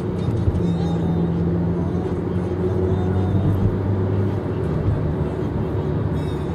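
Car driving at highway speed, heard from inside the cabin: a steady low rumble of tyre and engine noise.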